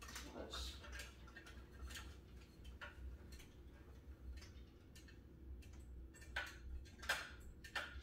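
Light, irregular clicks and taps of a tripod and LED grow light being handled as the light is screwed onto the tripod's mount, with a few louder knocks near the end.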